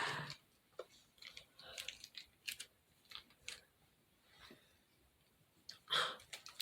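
Faint handling noises of small craft materials: scattered light clicks and rustles. Breathy exhales come near the end.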